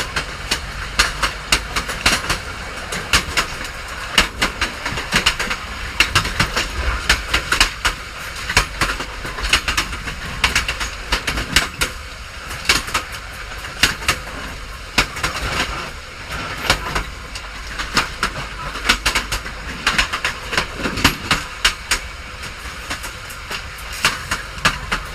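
Train running along the track: a steady low rumble with frequent sharp, irregular clicks and clacks of the wheels on the rails.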